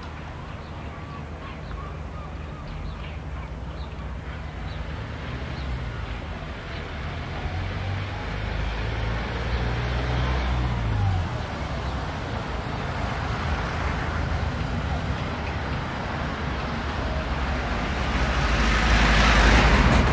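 Motor vehicle engines running steadily in street traffic, with one growing louder for a few seconds in the middle; near the end a vehicle passes close, the loudest moment.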